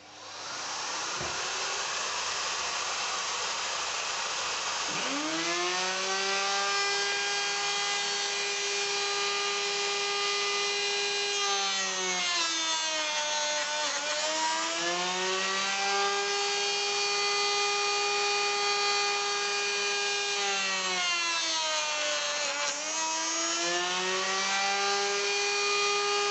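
Woodworking power tool motor running in a workshop: a rushing noise at first, then a steady whine that sags in pitch twice and picks back up, as the motor bogs under load while cutting wood.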